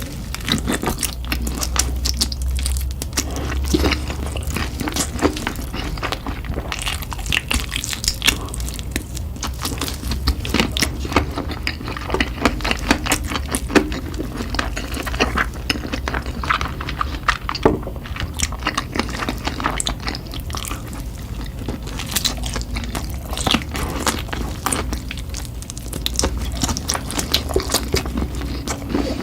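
Close-miked crunching and chewing of crispy fried chicken: a dense, irregular run of crisp bites and crackles over a low steady hum.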